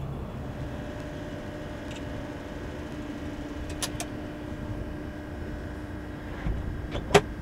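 A steady low mechanical hum with a faint constant tone in it. Light clicks come about four seconds in, and a single sharp click near the end is the loudest sound.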